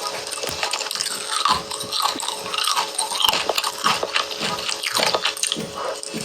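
Close-miked wet eating sounds: chewing, smacking and slurping, many small wet clicks in quick succession.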